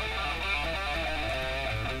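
Electric guitar played through a Bugera 333XL tube amp head: sustained, ringing notes that change pitch, over a steady low hum.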